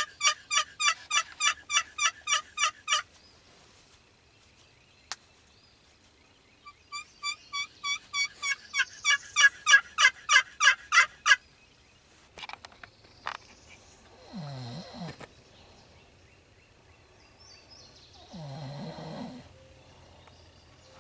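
Two runs of rapid turkey yelps, evenly spaced at about four or five notes a second, the second run growing louder toward its end. After a pause, two slow snores follow near the end.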